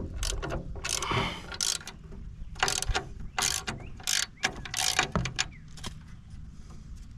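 Ratchet wrench with a 13 mm socket clicking in short, irregular strokes, loosening the bolts that hold a stump grinder's shield.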